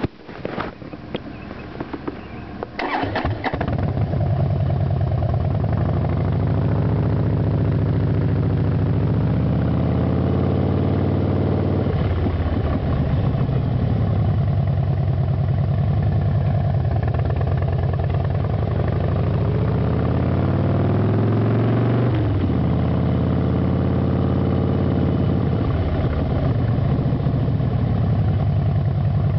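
Harley-Davidson Fat Bob's V-twin running through Vance & Hines Short Shots exhaust pipes. After a few irregular knocks in the first three seconds, it settles into a loud, deep, steady note, and the revs rise and fall several times.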